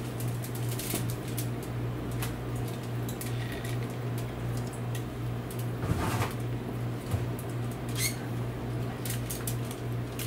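Butcher's twine being pulled tight and tied around a chuck roast on a rotisserie spit: small rustles, squeaks and clicks from the string, gloved hands and paper, over a steady low hum.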